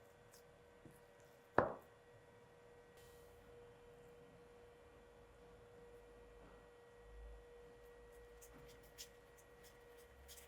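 A faint, steady, high hum with one sharp knock about one and a half seconds in.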